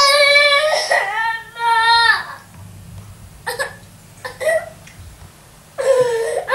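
Toddler crying: loud, high-pitched wails through the first two seconds, a few short sobbing catches of breath in the middle, and wailing again near the end.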